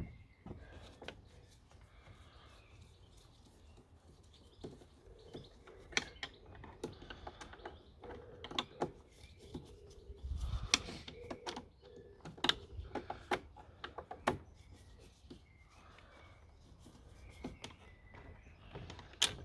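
Irregular sharp clicks and knocks of a Torx screwdriver and the plastic casing of a Dyson DC04 vacuum cleaner being handled while its motor-housing screws are undone.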